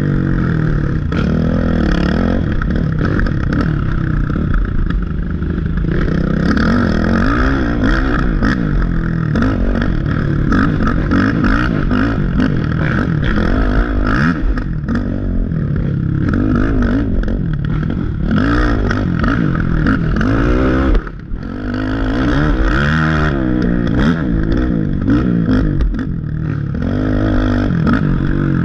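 Race ATV engine heard from on board, revving hard and falling back over and over as the rider works the throttle along a rough dirt trail, with clattering from the machine over the bumps. About two-thirds of the way through, the engine note drops away for a moment before picking up again.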